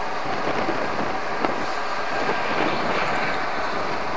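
Steady rushing harbour background noise, with one sharp click about a second and a half in.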